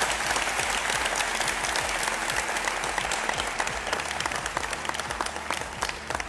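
Large audience applauding, dense clapping that thins out toward the end.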